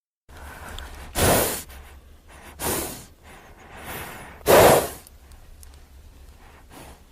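Sound-effect breathing made to stand for Indricotherium: four heavy, breathy exhalations, the last the loudest, over a low steady hum.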